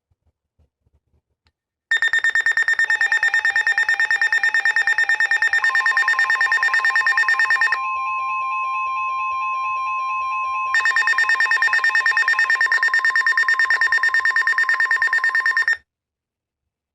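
A weather radio's alert alarm: a rapid pulsing electronic beep starts about two seconds in, drops out for about three seconds in the middle and stops shortly before the end. Under it runs the steady single-tone NOAA Weather Radio warning alarm tone, which begins partway through the first run of beeping and lasts about ten seconds, signalling the tornado warning that follows.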